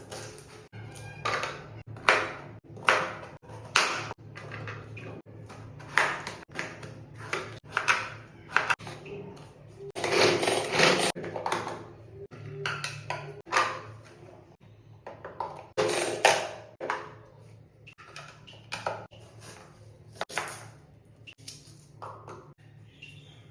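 Metal kitchen utensils clinking, a spoon knocking against a metal bowl or pan in irregular sharp strikes with a short ring, over a low steady hum.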